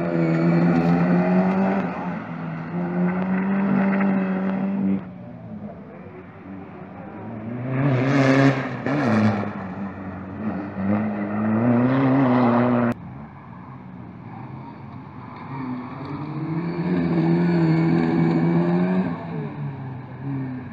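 Rally cars racing past one after another, engines revving hard with pitch climbing and dropping through the gears, including two sharp high-revving peaks near the middle. The sound breaks off abruptly twice between passes.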